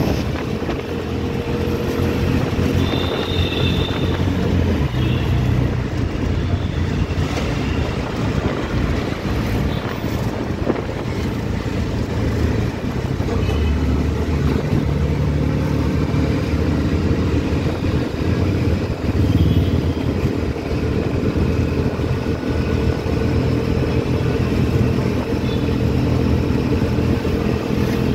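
Auto-rickshaw engine running as the rickshaw drives through city traffic, its engine note shifting as it speeds up and slows, with road noise around it.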